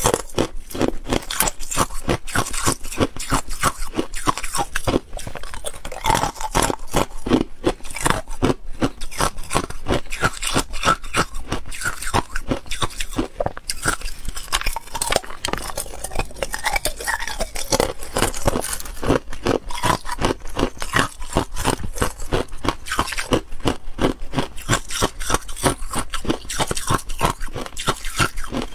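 Clear ice being bitten and chewed, a continuous run of sharp crunches and cracks, picked up close to the mouth by a clip-on microphone.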